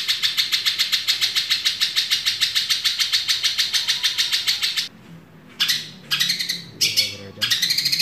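Long-tailed shrike (cendet) giving a fast, harsh chattering call of about ten notes a second, which breaks off about five seconds in and resumes in several short bursts.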